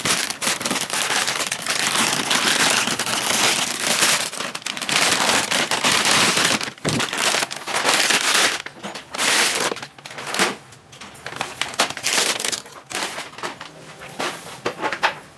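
Plastic packaging bags crinkling and rustling as an amplifier is unwrapped and slid out of them; dense and continuous for the first half, then coming in short irregular bursts.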